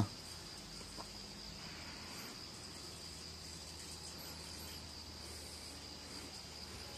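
Faint outdoor background: a steady, high insect trill with a low hum beneath it, and a light click about a second in.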